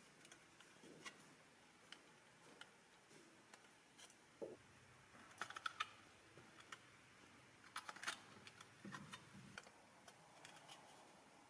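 Faint metallic clicks and scrapes of pliers working the stamped-steel tabs of a rusty 1940s Marx P-35 toy plane, prying them loose to take the toy apart. The clicks come in small clusters every few seconds.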